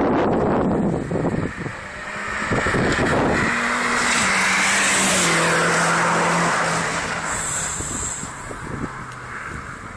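Stage 2 tuned Seat Leon Cupra R, its turbocharged four-cylinder engine and aftermarket exhaust running loud under hard acceleration. A few seconds in, the engine note drops in pitch in steps, and the sound fades over the last few seconds.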